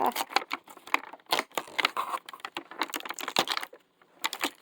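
Packaging being opened by hand: a dense run of crinkling, crackling and tearing clicks from paper and plastic, with a brief pause near the end.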